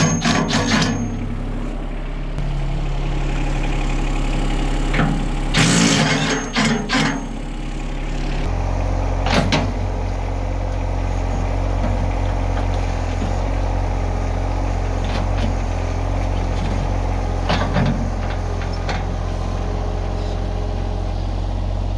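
Yanmar compact tractor's diesel engine idling steadily, its note growing louder about eight seconds in as the tractor is driven back. Over it, a cordless driver runs in two short spells, at the start and around six seconds, unbolting a clamp-on fork attachment from the loader bucket, and a few sharp metal knocks follow.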